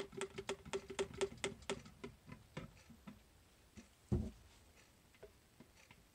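Lye solution dripping from a plastic pitcher and off a stick blender's shaft into the oils in a crock pot: quick, even plinks about four a second, thinning out after about two seconds to scattered drips. A single knock about four seconds in.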